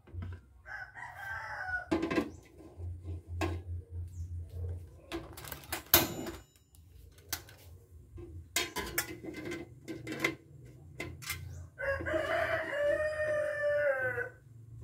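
A rooster crowing once near the end, a long call of about two and a half seconds that drops in pitch as it ends, with a shorter call about a second in. In between come several sharp knocks and clatters of aluminium pot, lid and steamer tray being handled.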